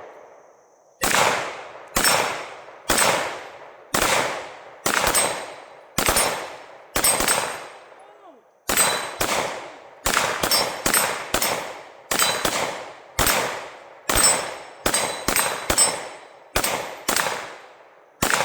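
Semi-automatic pistol shots at a range. About eight shots come roughly one a second, then after a short pause a faster string of around twenty follows, several in quick pairs.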